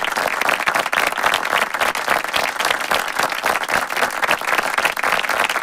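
Applause from many people, clapping steadily.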